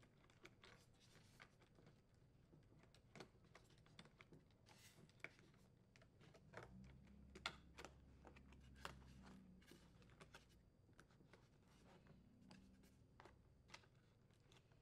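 Near silence with faint, scattered clicks and light handling noise: wiring and plastic retaining clips on a refrigerator cooling duct being handled as the damper control wires are pressed into place.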